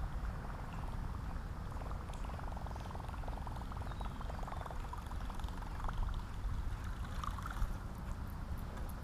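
Steady water noise around a drifting fishing kayak, with a low wind rumble on the microphone.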